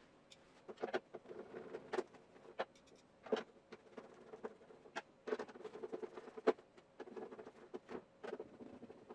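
Irregular light knocks, clicks and clatter of objects being handled, with the sharpest knocks about a third of a second in, around three and a half seconds in and about six and a half seconds in.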